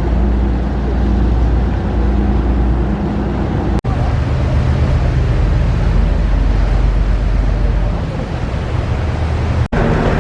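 Tour boat's engine running steadily, a loud low hum with a noisy wash over it. The sound breaks off for an instant twice, about four seconds in and near the end.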